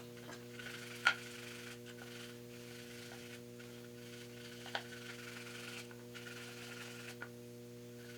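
Faint brushing on a piston's ring grooves, with three light clicks of metal parts, over a steady low electrical hum.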